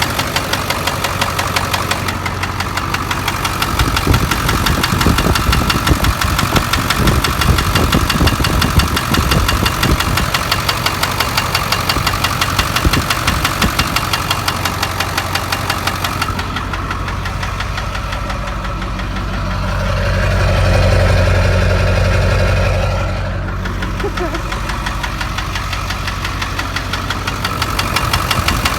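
Ford 7.3 L Power Stroke V8 turbodiesel running with a steady, rhythmic knock. The engine note swells for a few seconds about twenty seconds in. The knock gets louder with revs, and the owner suspects rod knock in an engine that has not been started for two years.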